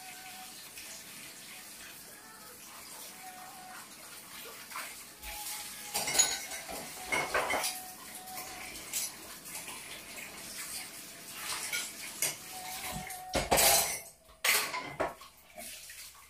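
Dishes and cutlery clinking and clattering as someone works at a kitchen counter: quiet at first, then irregular sharp knocks and clinks from about five seconds in, loudest near the end.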